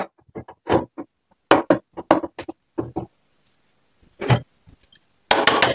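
Steel parts clinking and knocking as a home-made keyed adapter sleeve is handled and fitted onto a small petrol engine's output shaft. The knocks come singly and irregularly, with a louder one a little past halfway. Near the end there is a fast run of metallic clicks, about a dozen a second.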